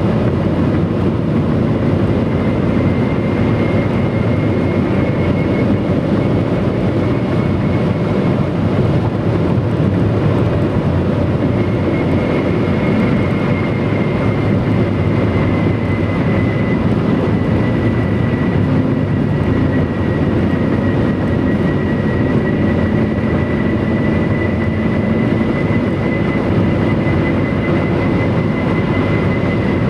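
Stock Bridgestone Turanza tyres on a Mitsubishi Lancer 9 whistling on the road surface at highway speed: a steady, high whistle, like an aeroplane, wavering slightly in pitch over a constant rumble of road noise.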